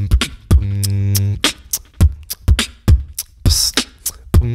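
Human vocal beatboxing, with no instruments: a quick rhythm of sharp mouth-made kick and snare hits. About half a second in comes a held low buzzing bass note lasting nearly a second, and about three and a half seconds in a short hiss like a cymbal.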